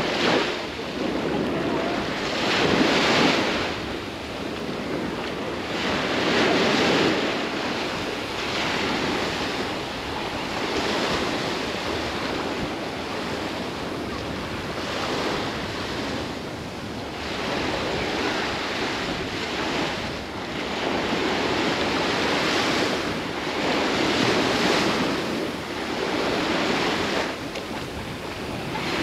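Baltic Sea surf breaking on a sandy beach, the waves swelling and washing in every few seconds.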